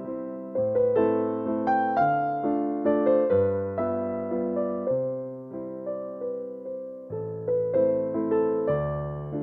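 Background music: a gentle piano melody with chords, notes struck about twice a second and fading between strikes.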